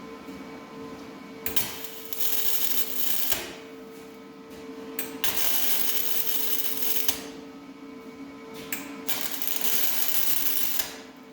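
Welder laying three short bursts of crackling weld into a sheet-metal patch panel on a car body, with a steady hum underneath.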